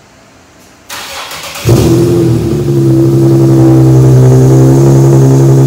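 2009 Infiniti G37's 3.7-litre V6 cranked by the starter for under a second, catching with a loud flare and settling into a steady idle. This is its first start with test pipes in place of the catalytic converters, so the exhaust runs without cats.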